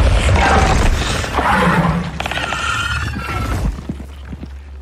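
Film sound effects: the heavy low rumble of an explosion dying away, with crashing, rattling debris and a giant monster's rapid clicking and growls over it. The sound fades toward the end.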